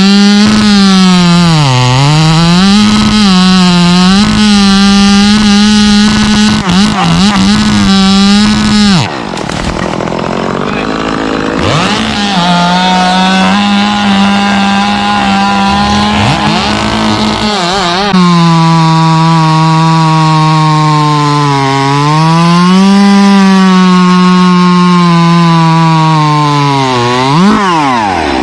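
Two-stroke chainsaw running at high revs and cutting wood, its pitch sagging again and again as the chain bogs in the cut and then recovering. It is softer for a stretch in the middle, and near the end it revs briefly and drops off as the throttle is released.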